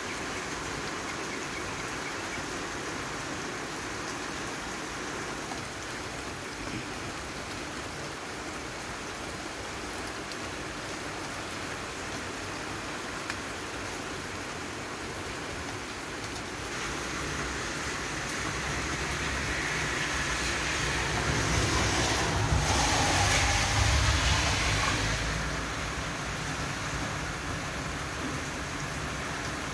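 Steady rain falling. Past the middle, a vehicle rumble swells, is loudest a few seconds later, then fades, like a car passing on the wet road.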